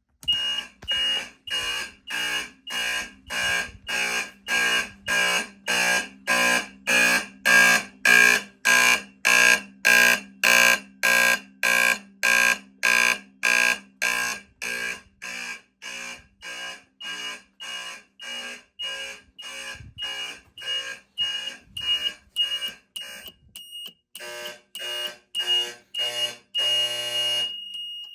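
Fire alarm horns sounding in even pulses, about two a second, over a steady high-pitched tone. Near the end the pulses change in sound and run into a brief continuous blast.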